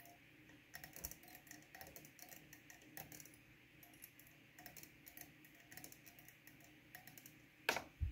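Faint, irregular clicking and ticking of thread being wrapped from a bobbin onto a fly hook held in a vise, with a louder knock near the end as the bobbin is let go to hang.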